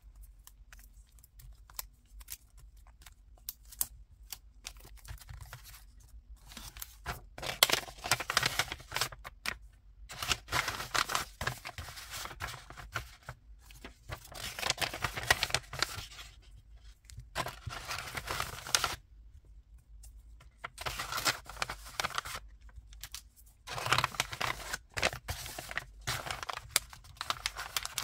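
Paper sticker packets and printed paper sheets rustling and sliding as they are handled and packed. The sound comes in bursts of one to three seconds with short pauses, after a quieter first several seconds of light clicks and taps.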